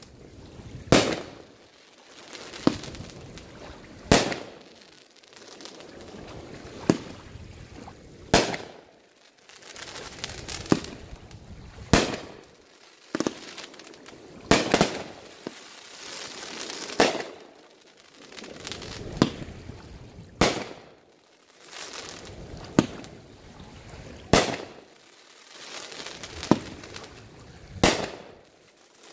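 A multi-shot consumer firework cake firing aerial shots one after another, a sharp bang roughly every two seconds with noisy haze swelling between the bangs.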